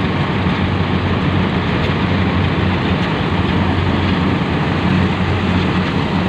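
Rice combine harvester running steadily while cutting, a constant low engine hum under an even roar of machinery.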